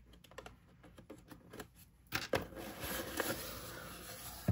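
A corrugated cardboard mailer box being opened by hand. Faint taps at first, then about two seconds in the lid pulls free and scrapes open, ending with a sharp click.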